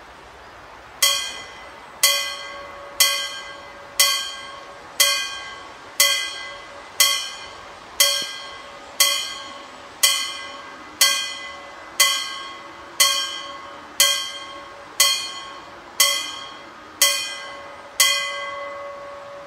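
Danish level-crossing warning bell striking about once a second, each stroke ringing out and fading before the next, signalling that a train is approaching and the barriers are coming down.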